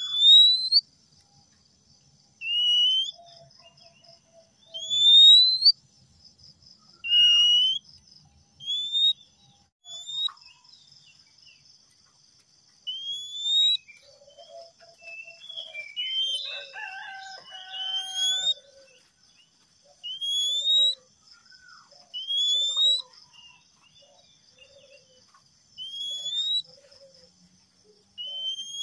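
Male oriental magpie-robin singing: loud, clear rising whistles repeated about every two seconds, with a more jumbled run of notes midway. A steady, pulsing insect trill runs beneath.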